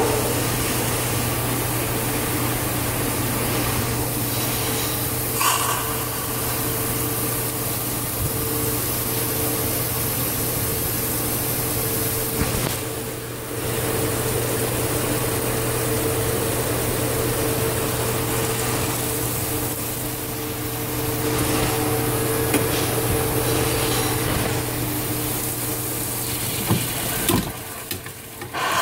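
Steady hissing rush of steam and water through a Dunham No. 1 steam trap on a test rig while it drains condensate into a sink, with a low steady hum beneath. The noise dips briefly about halfway through and drops away near the end.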